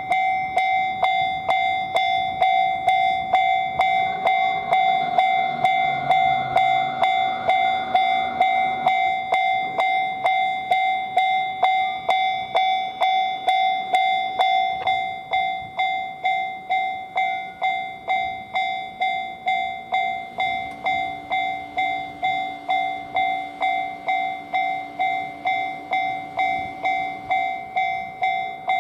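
Japanese railway level-crossing warning bell ringing its "kan-kan" alarm, about two strikes a second with a steady ringing tone. It gets somewhat quieter about halfway through.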